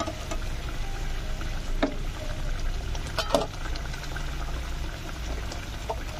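Hilsa fish curry gravy boiling in a kadai, bubbling steadily, with two sharp clicks about two and three seconds in, the second the louder.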